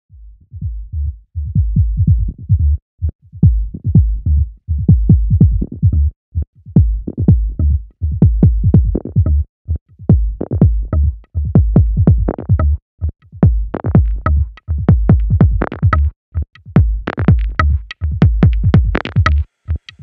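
Electronic dance music with a heavy drum-machine beat. It starts as a deep bass pulse and fills out with higher sounds as it builds.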